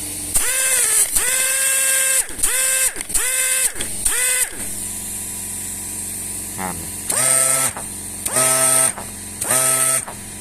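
Air motor of an XQD-19 pneumatic strapping tool run in short bursts on the trigger. Each burst spins up to a steady whine with a hiss of exhaust air. There are five quick bursts, a pause of about two seconds, then three more at a lower pitch. The motor is running strongly after repair.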